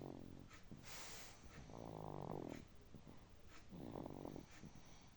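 Baby snoring: a faint, rattling snore on each breath, repeating about every two seconds, with soft breathy hiss between snores.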